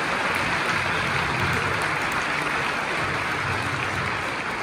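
Large audience in packed arena stands applauding, a dense, even clapping that holds steady throughout.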